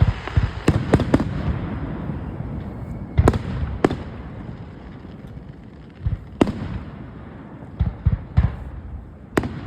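Fireworks display: aerial shells bursting in sharp bangs and duller low thumps at irregular intervals, about ten in all, with a low rumble between them.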